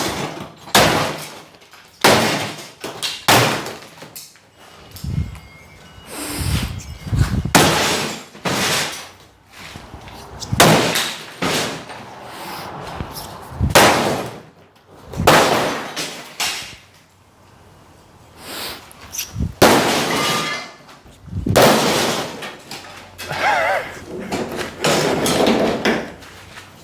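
Sledgehammer repeatedly smashing a Samsung flat-screen TV, with about one blow every second or two and a short lull about two-thirds of the way through.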